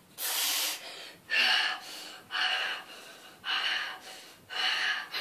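A boy gasping and breathing hard in an ice bath, five sharp breaths about a second apart, the first the sharpest. This is the quick, uncontrolled breathing of sitting in ice-cold water.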